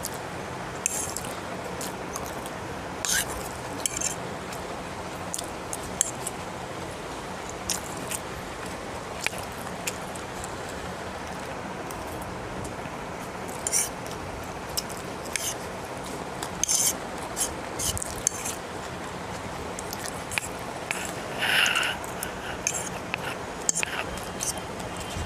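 Eating chowmein: a metal utensil clicking and scraping against a plate at irregular moments, with mouth sounds of noodles being eaten, over a steady background hiss.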